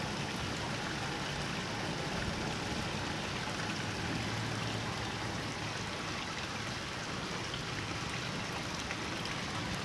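Steady hiss of moving water with no single splash or knock standing out.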